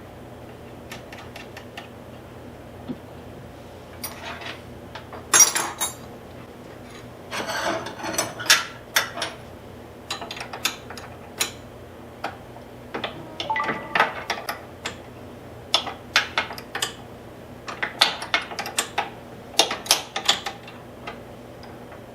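Hand-work on metal parts: irregular clinks, clicks and short rattles of small steel pieces and hand tools being handled and fitted, with a few louder clatters. A steady low electrical hum runs underneath.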